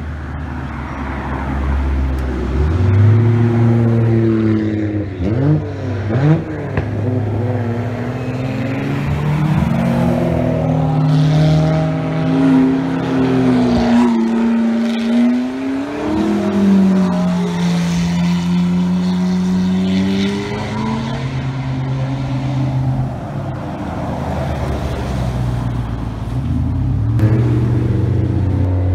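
Modified cars driving slowly past one after another, engines running deep and loud, with a couple of quick rev blips about five and six seconds in and engine pitch rising and falling as each car moves off.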